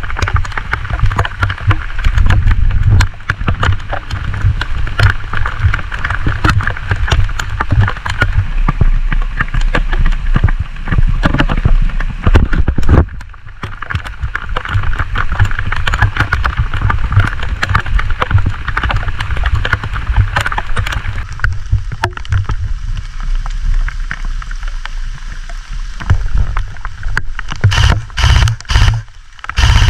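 Wind and rain buffeting the camera microphone during a thunderstorm: a loud low rumble with a steady hiss and many irregular clicks and crackles. It drops away briefly about halfway through and turns choppy near the end.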